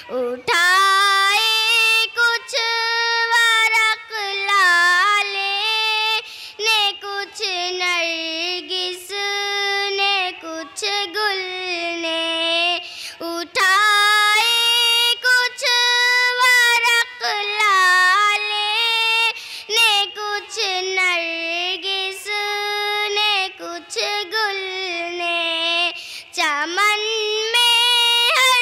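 A young girl singing an Urdu nazm solo, a single high melodic voice in held, gliding phrases with short breaks between them.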